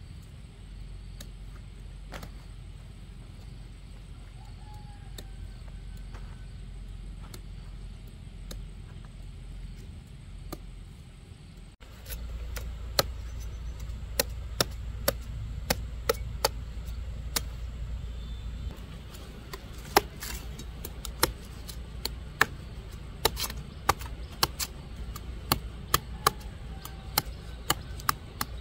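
Quiet background for about the first twelve seconds, then a run of sharp chopping strikes, about two a second, that carries on to the end.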